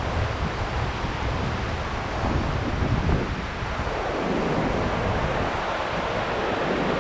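Steady rush of white-water river rapids and cascading waterfalls, with wind buffeting the microphone; the low buffeting eases about four seconds in while the water noise carries on.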